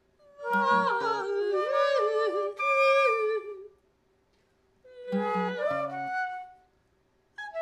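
Improvised flute playing three short phrases with sliding, bending pitches and brief pauses between them, over a few lower notes.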